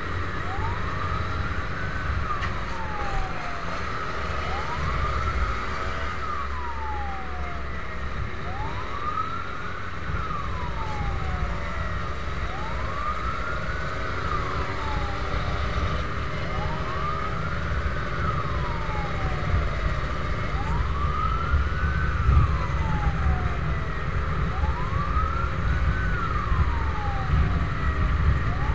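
Fire truck siren wailing, its pitch rising and falling in slow sweeps about every four seconds. Underneath is a steady low rumble of wind and road noise from riding behind the truck.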